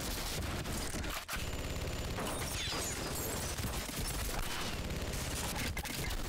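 Rapid automatic gunfire in a sustained burst, shot after shot with hardly a break, with a brief gap about a second in.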